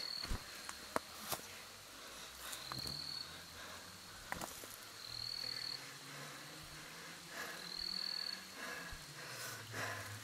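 A bee buzzing close by with a low, wavering hum that comes in about two and a half seconds in and lasts almost to the end. A short high chirp repeats about every two and a half seconds, and there are a few scattered clicks and rustles.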